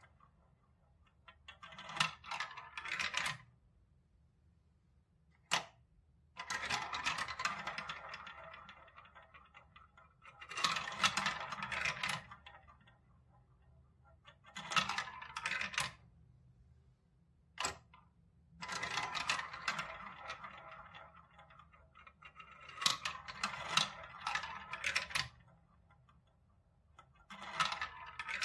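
Plastic balls rolling one after another through a plastic brick marble run's tubes and spiral funnels. There are about seven rattling runs of one to three seconds each, with short quiet gaps between them and two single sharp clicks in between.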